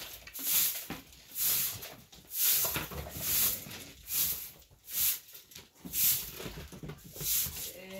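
Straw broom swept across a bare floor in repeated strokes, a brushing hiss about once a second.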